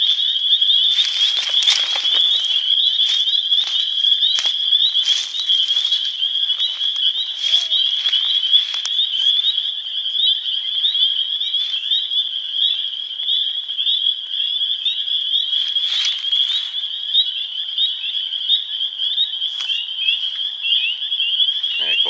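Frog chorus from a flooded marsh: many high-pitched calls overlapping into one steady, shrill din.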